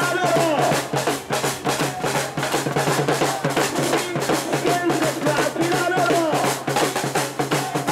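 Protest drums beating a fast, steady rhythm under shouting voices.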